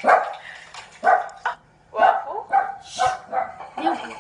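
A small animal's repeated short, high-pitched calls, about two a second.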